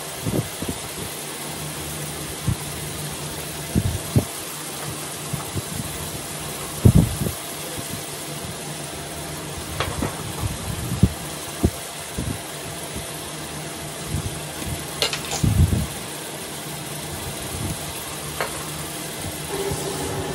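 Chicken and shredded ginger simmering and sizzling in a pan on an induction cooktop, over the steady hum of the hob's cooling fan. Occasional soft knocks and a few sharp clicks.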